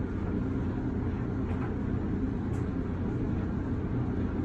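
Samsung clothes dryer running, with a steady low rumble from the turning drum.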